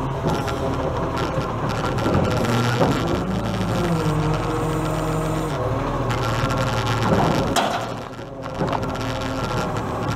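Iveco Acco side-loader garbage truck working its automated bin arm: the diesel engine's pitch rises and falls as it drives the hydraulics lifting a wheelie bin, with a few sharp knocks from the arm and bin.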